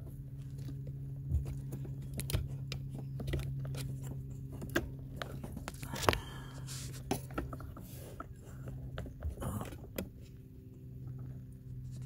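Small plastic clicks and scrapes of a wiring connector being handled and plugged into an HVAC blend door actuator, over a steady low hum.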